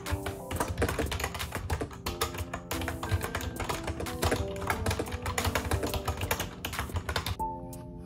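Typing on a Yunzii B309 retro typewriter-style keyboard with round keycaps: a fast, continuous run of key clicks that stops near the end, over background music.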